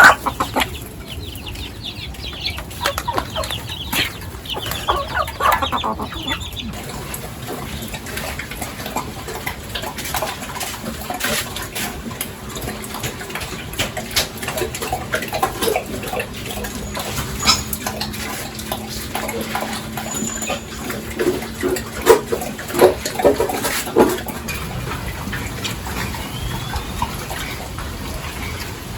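Chickens clucking, with scattered sharp knocks, the loudest a cluster about two-thirds of the way through.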